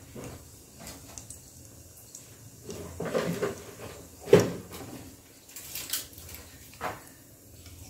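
Cumin seeds sizzling faintly in hot ghee in a steel pot, under a few clinks and knocks of kitchen utensils and containers being handled; the loudest knock comes a little past the middle.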